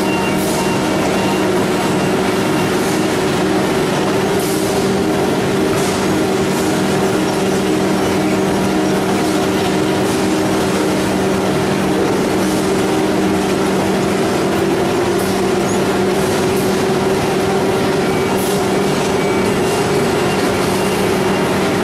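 Steady, loud hum of conveyor machinery in a corrugated-board plant, with a few held tones, including a rail-guided transfer car (shuttle car) that carries stacks of board between roller conveyors.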